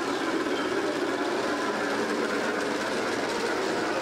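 G-scale model train running along its track: a steady, even rolling noise.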